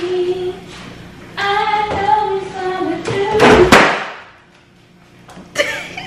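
A woman singing long, drawn-out notes, then a couple of loud thuds about three and a half seconds in, the loudest sound here, and a shorter knock near the end.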